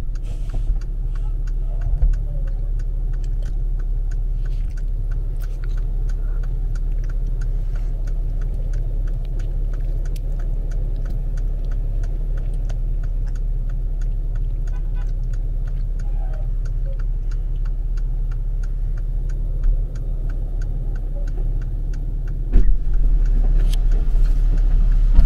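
Car engine idling with a steady low rumble while the indicator ticks at an even pace; a thump near the end.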